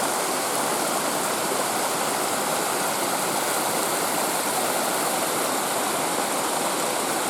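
Water of a rocky stream rushing steadily over its falls, an even hiss that never lets up.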